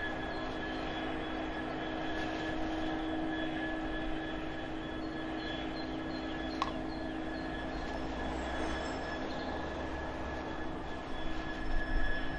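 Class 66-hauled freight train running past: a steady rumble with continuous ringing tones over it, a single click about halfway, and a little louder near the end.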